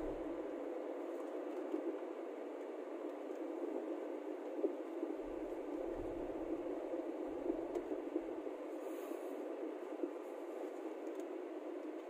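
Steady road and engine noise inside a moving car's cabin, with a few low rumbles about halfway through.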